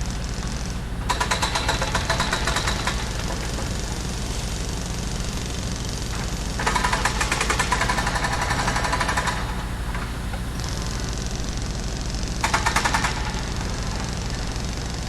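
Construction site ambience: an engine running steadily underneath, with three bursts of a jackhammer hammering rapidly, the longest about two and a half seconds.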